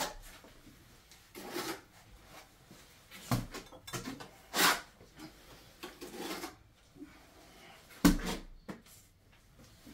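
Notched trowel spreading and scraping thin-set tile mortar across cement backer board: a series of short scrapes a second or two apart, with the loudest, sharper one about eight seconds in.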